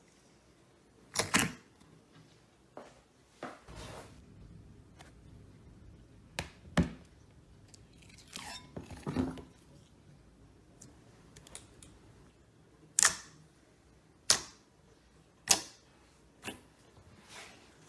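Slime being handled by hand: sharp wet pops and clicks, about a dozen at irregular spacing, with softer squishing sounds in between.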